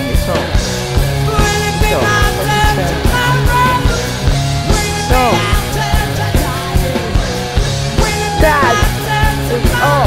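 Punk-style rock song with a steady driving beat and singing, from a band recording used as the soundtrack.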